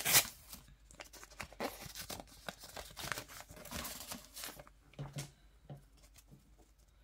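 A paper trading-card pack wrapper torn open at the very start, then the cards inside rustling and clicking as they are slid out and flipped through, the handling sounds thinning out near the end.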